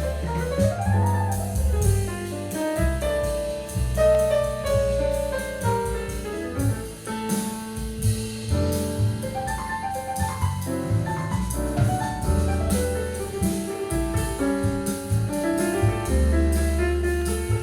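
Jazzy instrumental music with piano, deep bass notes and light drums, played back through Bose 301 Series I loudspeakers as a sound test.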